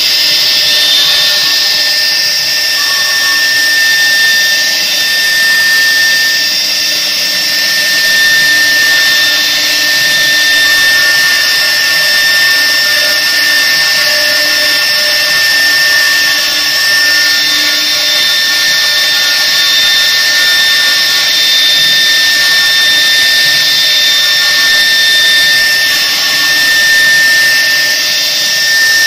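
Two 3 kW water-cooled spindles of a double-head CNC wood router running at speed while their bits engrave grooves into a panel. The sound is a loud, steady, high-pitched whine with cutting noise.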